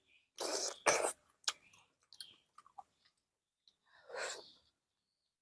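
Close-up eating sounds of someone biting and chewing fruit. Irregular noisy bursts and clicks, the loudest about half a second to a second in, and another near four seconds.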